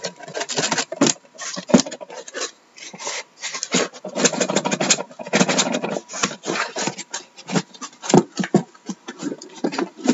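Cardboard case carton being slid up and off a stack of sealed hockey card hobby boxes: cardboard rubbing and scraping against the boxes in quick, irregular strokes.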